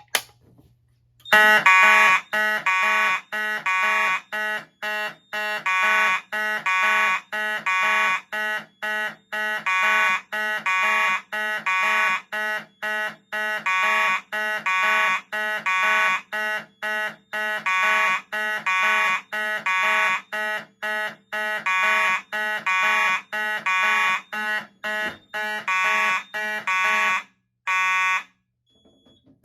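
A Simplex 4251-21 pull station is pulled with a sharp click, and about a second later fire alarm horns start sounding in rapid, evenly repeating loud pulses: the Simplex 4903-9221 and the Federal Signal 450 horn on two panels at once, one coded in march time and the other in code 3 temporal, overlapping. The pulses stop briefly near the end.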